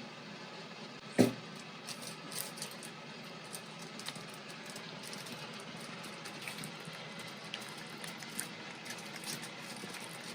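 Glue being stirred into slime in a bowl: faint squishing and scraping with small scattered clicks of the stirrer against the bowl, and one sharper knock about a second in.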